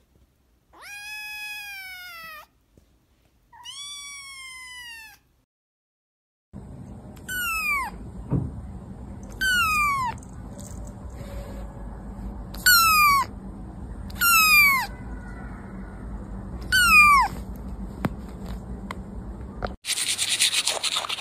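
Kittens meowing: two drawn-out meows, then five short, high-pitched mews that fall in pitch, a couple of seconds apart, over a low steady hiss. Near the end, a short burst of noise.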